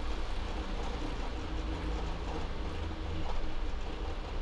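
Boeing 737-800 flight deck noise while rolling along the runway on the ground: a steady low rumble from the wheels and airframe, under a steady hum from the engines and aircraft systems.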